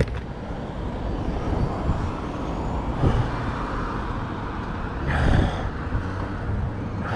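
Steady road and traffic noise with a low engine rumble, picked up by a helmet-mounted camera, with a brief louder rushing noise about five seconds in.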